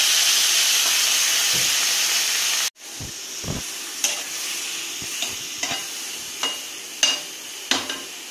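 Beetroot mixture sizzling loudly in a hot metal kadai just after water is poured in, with a steady hiss that cuts off abruptly about three seconds in. After that a quieter sizzle goes on under the scrapes and clicks of a metal spoon stirring the mixture and knocking against the pan.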